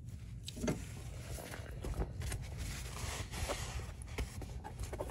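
Adjustable pliers clicking and scraping on the aluminium hex cap of a hydraulic suspension filter housing as it is snugged down without over-tightening, a few separate knocks over a steady low rumble.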